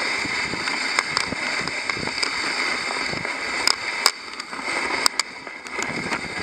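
Dog sled gliding over a packed snow trail: a steady hiss of the runners on snow, with several sharp clicks and knocks from the sled.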